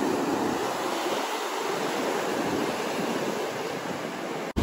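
Sea surf washing onto the beach: a steady rushing of breaking waves, with a brief dropout just before the end.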